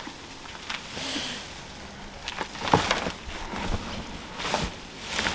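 Leaves and stems rustling and crackling in irregular bursts as uprooted garden plants are handled and pressed into a plastic wheelie bin.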